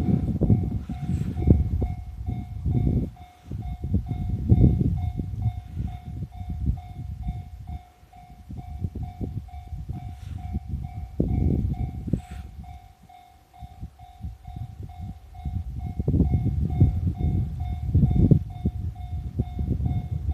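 Japanese level-crossing warning bell ringing in a steady repeated beat, over the low rumble and wheel clatter of an E501 series electric train passing at speed. The rumble swells and fades several times as the cars go by.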